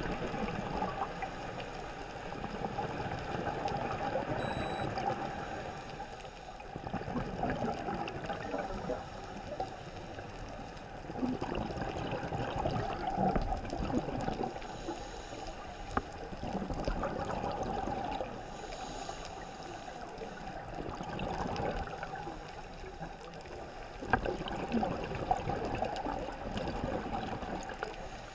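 Underwater sound of a scuba diver's regulator breathing: exhaled bubbles gurgling in bursts every few seconds, with quieter gaps between.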